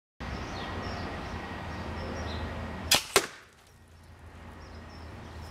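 Two sharp cracks about a quarter second apart, a little under three seconds in: a pneumatic air cannon firing and its finned metal bolt striking a target of stacked plywood sheets.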